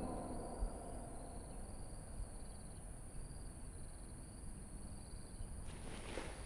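Quiet night ambience: a faint low rumble with crickets chirping in a pulsing pattern and a steady high whine. Footsteps begin near the end.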